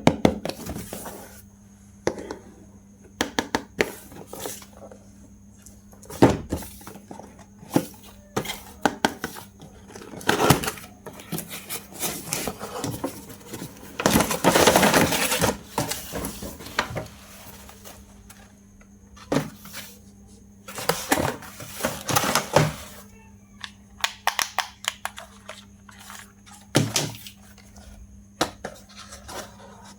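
Plastic toy parts and packaging being handled: scattered sharp clicks and knocks, with two longer stretches of crinkling about halfway through and again a little later, over a faint steady hum.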